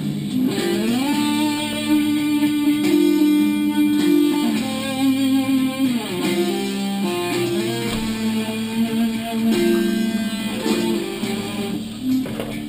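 Background music led by an electric guitar, with notes that slide up and down in pitch.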